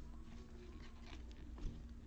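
Faint soft scraping and light ticks of football trading cards being slid from the front to the back of a stack in gloved hands.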